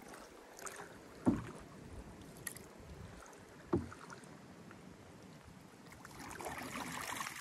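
Canoe being paddled through shallow water: a quiet swish of water around the paddle and hull, broken by two sharp knocks on the canoe about two and a half seconds apart, and the water swishing louder near the end.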